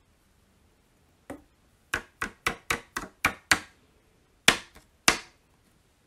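Sharp taps from knocking silver embossing powder about over a plastic powder tray: one tap, then a quick run of about four taps a second, then two louder knocks near the end.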